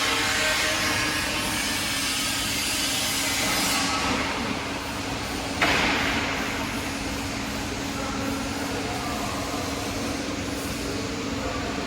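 Gator Fab profile bending machine running with a steady mechanical hum, and one sharp clack about five and a half seconds in.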